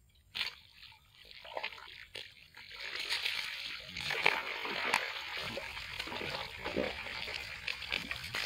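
Water sloshing and splashing around a person wading chest-deep, with scattered crackles; it grows louder over the first three seconds and then stays steady.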